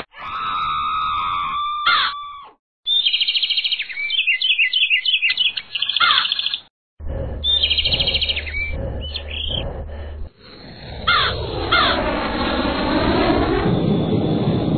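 Cartoon sound effects: bursts of quick bird chirps and tweets with short gaps between them, then a long swooping sound that falls and rises in pitch.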